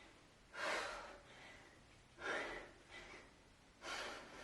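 A woman breathing hard and sharply through a set of kettlebell swings: three forceful breaths, about one every second and a half, in rhythm with the swings.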